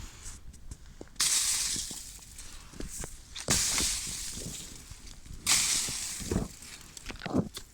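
Three sudden rushing hisses about two seconds apart, each fading over a second or so. Light clicks and crackles come between them.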